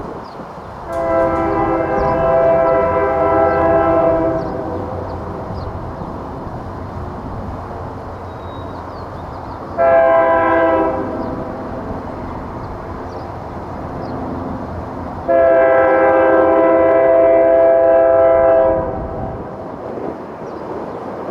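Freight locomotive's air horn blowing three blasts, long, short, long, each a chord of several notes, over the low rumble of the train.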